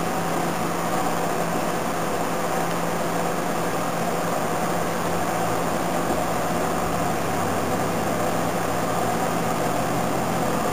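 A steady mechanical hum with hiss, even and unchanging throughout.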